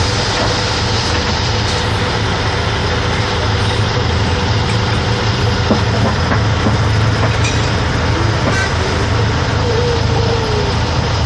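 Steady low hum of the Astros II MK 6 launcher truck's diesel engine idling, heard inside the closed cab with the cab air conditioning running. A few faint clicks sound over it.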